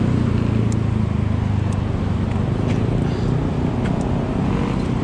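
City road traffic: a steady rumble of motor vehicles, with one engine's hum standing out over the first couple of seconds, then easing off.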